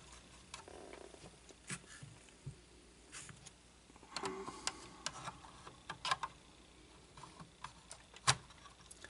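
Scattered faint clicks and taps of model kit parts being handled and pressed into place on the X-Wing model's rear fuselage frame, with one sharper click near the end.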